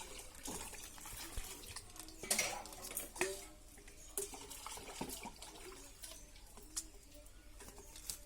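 Small splashes and drips of water in irregular short bursts with light clinks, as a parrot splashes in water.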